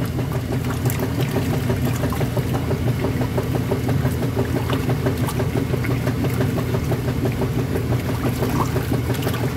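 Kenmore top-loading washing machine running a hot-water heavy-duty cycle: a steady motor hum under the churning and splashing of the water in the tub.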